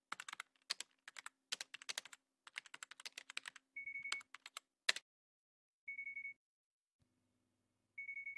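Computer keyboard typing in quick runs of keystrokes. Then a short trilling electronic tone like a phone ringing sounds three times, about two seconds apart.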